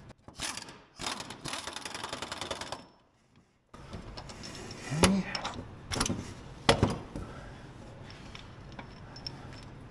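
Hand ratchet clicking rapidly for about three seconds as the bolt drawing a fluid-damper harmonic balancer onto the crankshaft is turned. After a short break, a few scattered metallic knocks.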